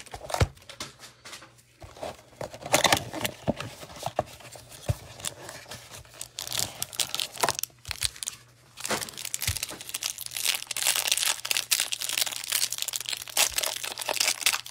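A cardboard trading-card hanger box being handled and opened, then the plastic wrapper around a stack of cards crinkling and tearing as it is peeled off. The crinkling is sparse with scattered clicks at first and turns denser and steadier in the last few seconds.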